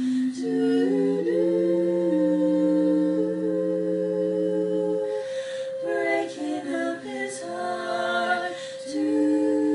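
Four women singing a cappella in close harmony, without words, holding long sustained chords. About five seconds in, the parts move through a few quicker changing notes, then settle on a held chord again.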